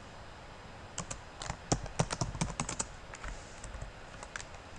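Typing on a computer keyboard: a quick run of key clicks starting about a second in, thinning out to a few scattered keystrokes near the end.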